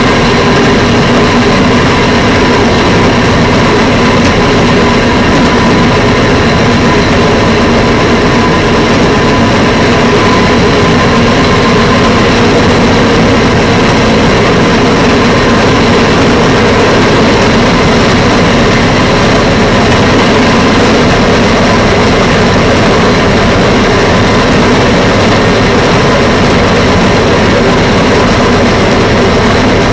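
Steady, loud engine drone of a rail vehicle running along the track, unchanging throughout.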